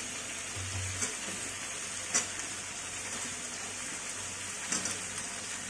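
Chicken pieces frying in hot oil in a wok, a steady sizzle as they turn golden brown, with a few short sharp clicks about one, two and nearly five seconds in.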